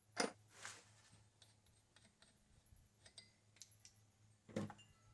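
Small metal hardware and hand tools being handled: a few sharp clicks and light clinks, the loudest near the start and about four and a half seconds in, with fainter ticks between.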